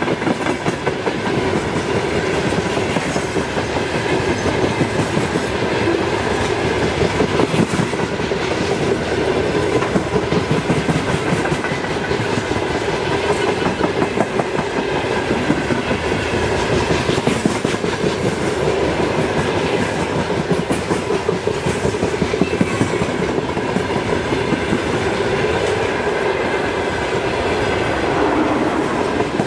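Freight train of open-top gondola wagons rolling past close by, its wheels clattering steadily on the rails.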